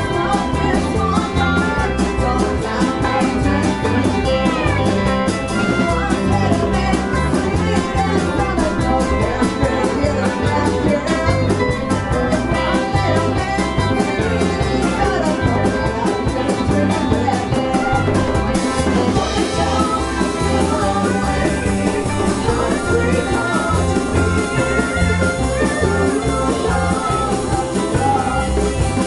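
Live band playing a song: drum kit keeping a steady beat under electric bass, electric guitars and hand drums. The high cymbal pattern changes about two-thirds of the way through.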